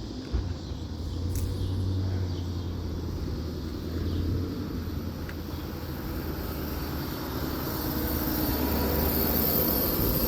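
Steady low outdoor rumble with a background hiss that grows slowly louder toward the end.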